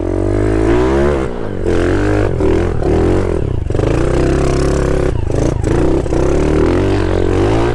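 Dirt bike engine revving hard in first gear under load on a hill climb, its pitch rising and falling as the throttle is worked, with several brief throttle chops.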